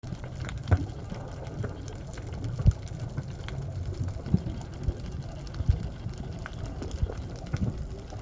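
Underwater sound picked up by a camera held under the water: a steady low rumble of moving water against the camera, with irregular knocks and clicks several times.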